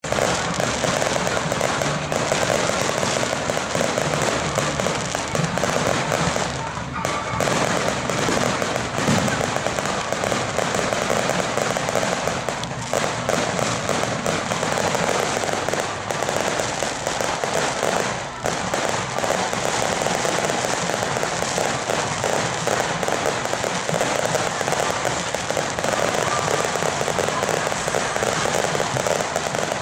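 Ground-level fireworks going off in a dense, continuous crackle of rapid small bangs, with no real pause and only a few brief dips.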